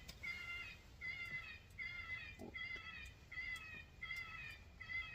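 Electronic predator call playing a prey-animal distress sound: short, wavering high-pitched cries repeated about every three-quarters of a second, a lure meant to draw in bobcats and coyotes.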